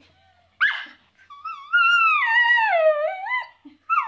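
Miniature schnauzer howling in excitement: a short yip about half a second in, then a long wavering howl that sinks in pitch near its end, and another howl starting just before the end.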